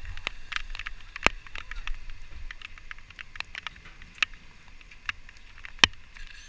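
Hail and rain striking in sharp, irregular ticks, two of them loud, over the steady buzz of a small quadcopter drone hovering low, with wind rumbling on the microphone.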